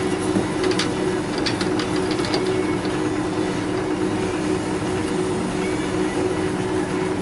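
Steady hum of workshop machinery, with a few sharp clicks and knocks in the first couple of seconds as a wood blank is handled and seated in a lathe's metal four-jaw chuck.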